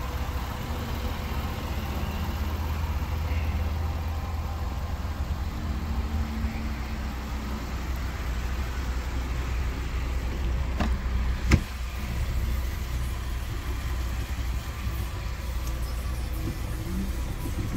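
A car engine idling with a steady low rumble, and one sharp click about two-thirds of the way through.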